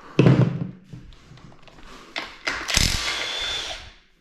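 A power tool run in two short bursts, one about a quarter second in and a longer one of about a second near three seconds, backing out the water pump bolts on a GM 2.4 Ecotec engine.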